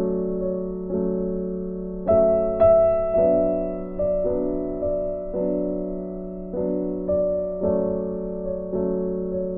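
Background music: a piano-like keyboard playing slow sustained chords, a new chord struck about once a second and fading away.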